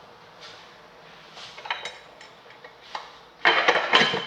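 Kitchen pots and utensils clinking and clattering: scattered light clinks, then a loud run of sharp metal knocks and clatter about three and a half seconds in.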